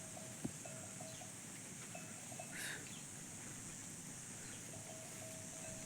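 Quiet jungle ambience: a bird repeating short, level notes in little groups, over a steady high insect drone, with one faint click about half a second in.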